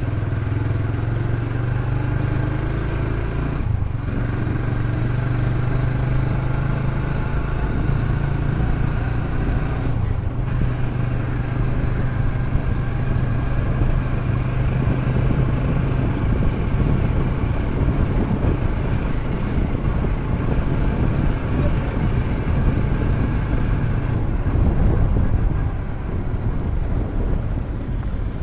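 Motorcycle engine running steadily while riding, with wind and road noise rushing over the microphone that takes over in the second half and is loudest near the end.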